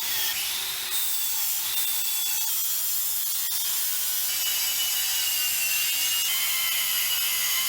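A handheld power sander running steadily against bare metal, giving a high grinding hiss with a motor whine that drifts down in pitch as it is pressed in. The metal is being sanded back to clear surface rust before painting.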